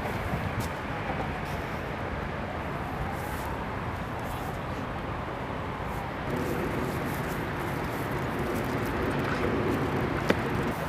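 Steady rumble of road traffic on a road bridge, growing a little louder about six seconds in, with one sharp click near the end.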